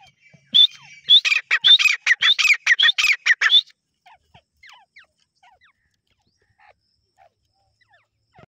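Grey francolin calling: a fast run of repeated high call notes, about five a second, lasting about three seconds, followed by faint scattered chirps.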